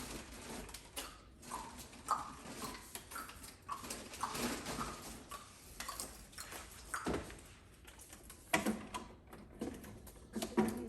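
Plastic water bottles knocking and clunking against each other and the shelf as they are stocked into a refrigerator: a run of irregular knocks, with a louder one about seven seconds in and a cluster near the end.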